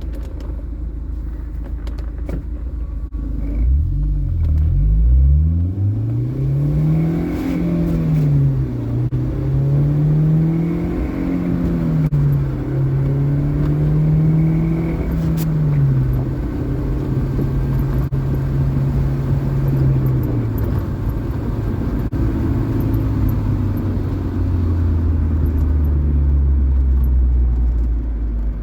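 2005 Honda S2000's 2.2-litre four-cylinder engine pulling through the gears: the revs climb and drop back with each upshift, several times in a row. The car then settles to a steady cruise, with the revs easing lower near the end.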